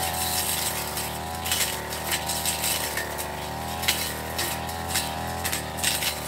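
Backpack brush cutter running at working speed, its engine pitch wavering up and down as the throttle is worked. Frequent sharp clicks and ticks come from the cutting head striking grass stems and twigs while it clears undergrowth.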